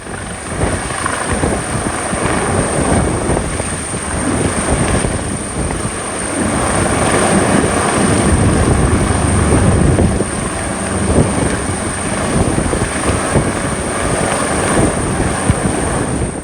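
Loud, steady rushing noise with a thin, high steady whine above it, like wind or machinery noise.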